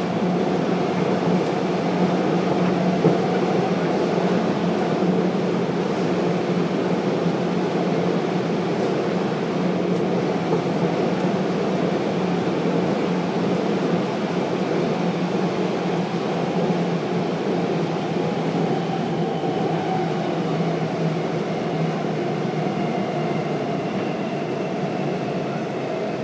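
Subway train running, heard from inside the carriage: a steady rumble of motion noise with a low hum underneath.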